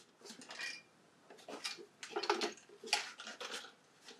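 A loose part rattling inside the extruded-aluminium case of a Pace MBT-250 rework station as the unit is tilted and rolled over: irregular light clicks and knocks, busiest in the second half.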